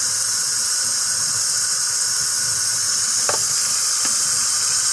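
Kitchen tap running steadily, water pouring over soaked pinto beans in a mesh strainer and into the sink as they are rinsed.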